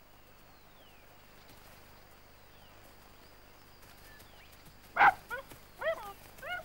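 Dingoes yelping: after a few seconds of faint outdoor hiss, one loud sharp yelp about five seconds in, followed by a quick run of short, high yips.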